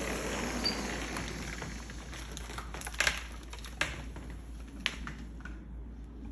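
Squirrel tapping on a window pane: a few sharp, irregular taps, with two close together about three seconds in.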